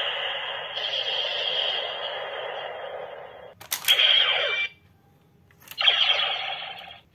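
Recast DX Decadriver toy belt playing its Final Attack Ride electronic sound effects through its small, thin-sounding speaker. The effects run steadily for a few seconds. A sharp plastic click comes a little past halfway, followed by a short burst with falling tones, then a second click and a final burst that cuts off.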